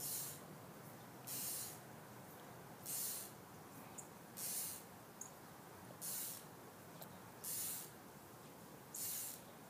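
Fly line swishing through the air during repeated false casts: seven short high whooshes, one about every second and a half, back cast and forward cast in turn.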